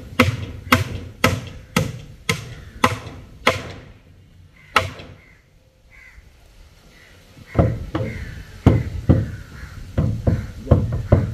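Claw hammer striking wooden shuttering boards around a concrete column: a steady run of sharp blows about two a second, a pause of a couple of seconds, then more blows near the end.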